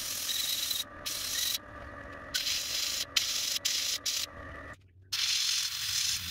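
Gravity-feed airbrush spraying paint in short bursts of hiss, triggered on and off every second or so, with a brief pause about five seconds in.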